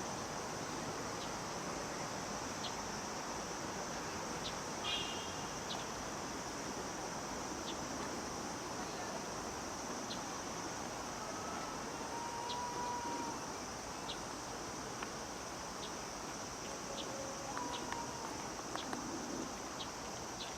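Cicadas droning steadily as one high, even buzz, over a constant low background noise, with a few faint short ticks scattered through.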